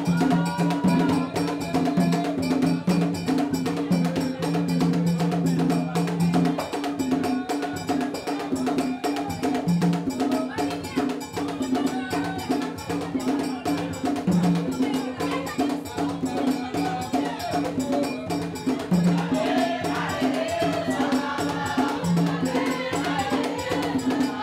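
Vodou ceremonial music: rapid, steady hand percussion with voices singing, the singing clearer near the end.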